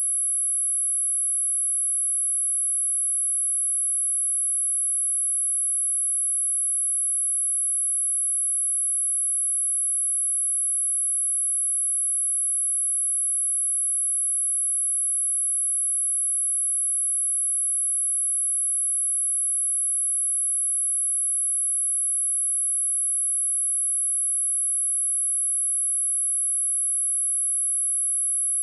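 A pure, steady high-pitched sine-wave test tone at 10865 Hz, held unchanging, of the kind played to test a speaker or to shake water and dust out of it.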